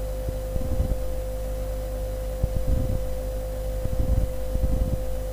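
Steady electrical hum with a low rumble, and a few faint, irregular low bumps.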